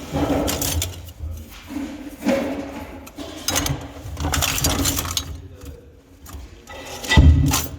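Metal objects clinking and rattling as they are handled, in irregular bursts, with a heavier knock near the end.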